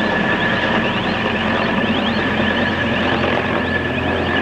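Mi-10 heavy-lift helicopter flying overhead: its five-blade main rotor and twin turboshaft engines running, with a steady high turbine whine over the rotor noise.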